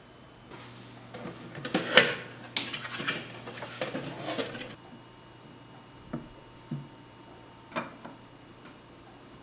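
Cardboard figure box being opened and handled, a dense run of rustling and scraping for about four seconds. This is followed by three short knocks as the plastic figure pieces are set down on the table.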